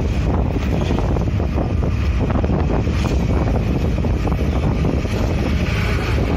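Steady wind buffeting the microphone while riding in the open in traffic, with a low rumble of road and engine noise underneath.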